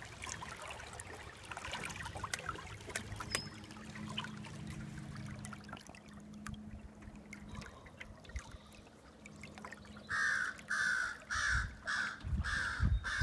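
Water lapping and trickling along the hull of a small boat under way, with the faint steady hum of its electric trolling motor. Near the end a bird calls about seven times in quick succession, louder than the water.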